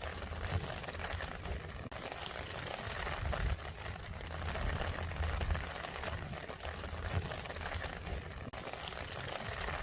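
Rain falling steadily, a dense patter of drops over a low rumble.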